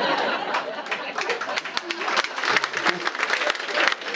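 Audience clapping and laughing after a joke, a dense patter of many hands with voices mixed in.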